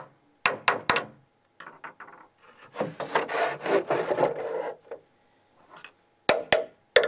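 Hard plastic knocks on a glass-fibre-reinforced polyester light-fitting housing: three quick sharp taps, then about two seconds of rubbing and scraping as the long housing is shifted and turned over on the work surface, then a few more sharp taps near the end.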